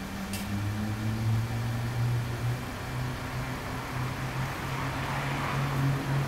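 Yamaha TZR250 (3MA) rear-exhaust two-stroke twin idling, a steady low note that wavers slightly in pitch. A soft rushing noise swells about five seconds in.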